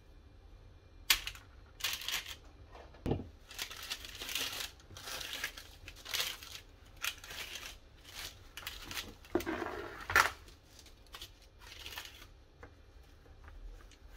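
Parchment baking paper crinkling and a cotton kitchen towel rustling as a baking tray is covered and the towel tucked under it, in irregular bursts with a soft knock about three seconds in.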